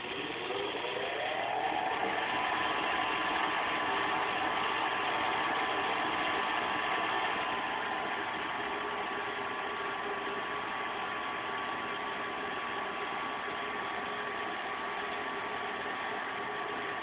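Gas furnace induced draft blower motor starting up, its whine rising in pitch over the first couple of seconds, then running steadily with a noisy hum; the owner suspects its bearing is going out.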